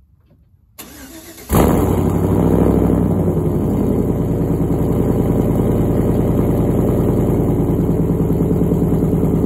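2010 Chevrolet Silverado pickup's engine being started: the starter cranks briefly about a second in, then the engine catches loudly, revs up for a moment and settles into a steady idle.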